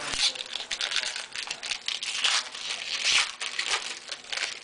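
Trading card pack wrapper crinkling and tearing as it is torn open and the cards are handled, an irregular run of rustles and crackles.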